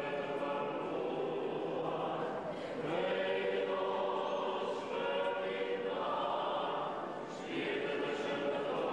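Church choir of men and women singing Orthodox liturgical chant, holding each note for a second or two before moving to the next.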